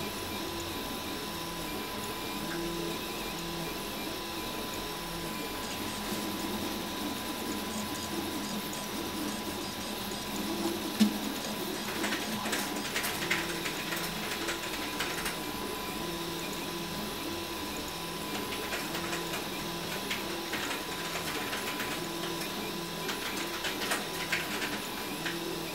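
RepRap Huxley 3D printer at work: its stepper motors hum in short, repeating tones that change pitch in steps as the print head and bed move. Scattered light clicks run through it, with one sharp click about eleven seconds in.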